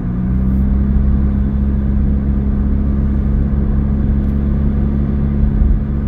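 Car driving along a road, heard from inside the cabin: a steady engine hum over low road rumble. The hum drops slightly in pitch right at the start.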